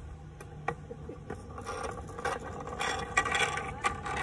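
Wheels of a pushed chair rolling over an asphalt road, rattling and scraping with many irregular clicks, growing louder in the second half.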